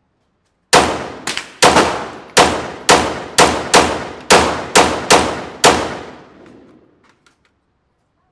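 Unsuppressed .300 AAC Blackout AR-style rifle fired in quick semi-automatic succession: about eleven sharp shots, roughly two a second, each ringing off the walls of an indoor range, the last echo dying away about a second after the final shot.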